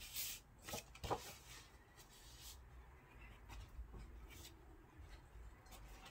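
A cardstock box being picked up and moved across a table: a few light paper rustles and taps, the loudest about a second in, with fainter ones later.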